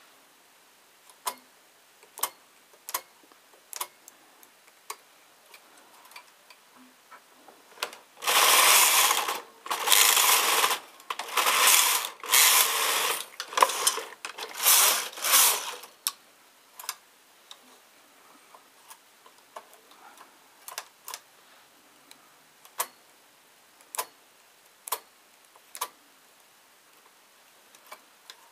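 Domestic flatbed knitting machine during shoulder shaping: sharp single clicks about once a second as needles are moved by hand on the needle bed. In the middle come several back-and-forth passes of the carriage sliding across the bed with a loud rattling rush, followed by more single clicks.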